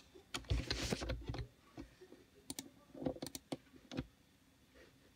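Computer keyboard keystrokes in a quick run about half a second in, followed by several single sharp clicks over the next few seconds.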